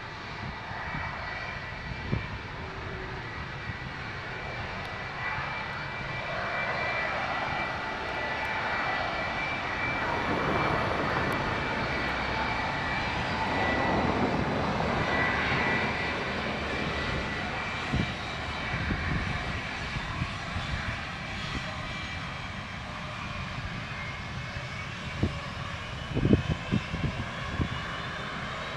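Airbus A320 jet engines at takeoff power during the departure roll: a steady jet noise with a high whine, swelling to its loudest around the middle and then easing off. A few low thumps near the end.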